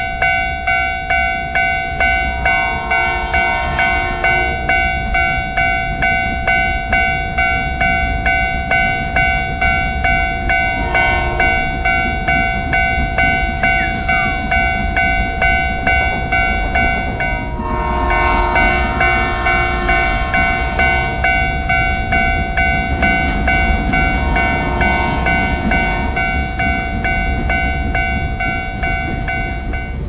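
Japanese level-crossing warning bell ringing "kan-kan" in a steady rhythm of about two strokes a second, over the continuous rumble of passing trains. A train horn sounds four times, the longest blast a little past halfway.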